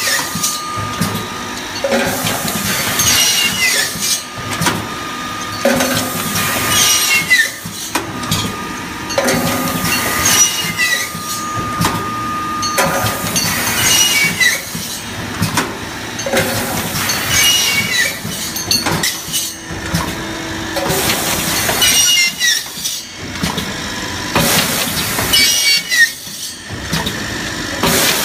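Automatic aluminium hinge-making machine running its punching, chamfering and cutting cycle: sharp knocks repeating about every two seconds, with short falling metallic squeals and a steady whine underneath.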